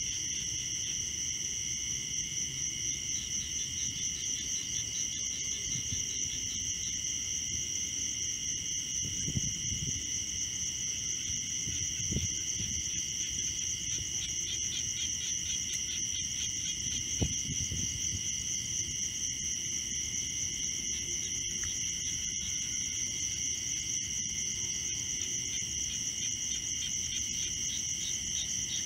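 Steady high-pitched chirring of insects, with three soft low thumps in the middle stretch.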